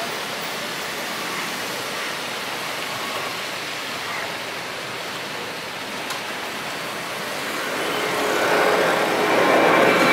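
Airbus A320-family twin-jet's engines at takeoff thrust as it lifts off and climbs out: a steady rushing roar that grows louder about eight seconds in as the jet comes nearer, with a whining engine tone coming through.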